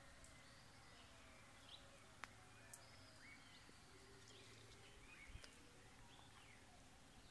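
Faint birdsong: scattered short chirps and whistled calls over a quiet rural background, with a couple of small clicks about two seconds in.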